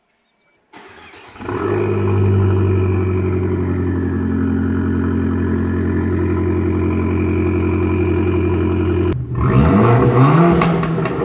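Fiat Abarth 595's 1.4-litre turbocharged four-cylinder engine with an Akrapovic exhaust starting up and settling into a steady fast idle. About nine seconds in it breaks off and revs up, rising in pitch, with a few sharp pops.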